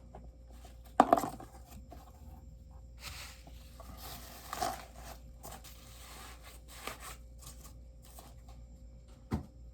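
A bobblehead's cardboard box and packing being handled as the figure is taken out: a sharp knock about a second in, then rustling and scraping, and another knock near the end.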